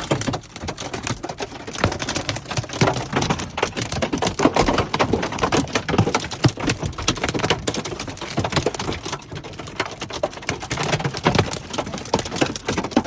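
Hailstones pelting down in a dense, irregular clatter of sharp impacts, over a steady hiss of falling rain.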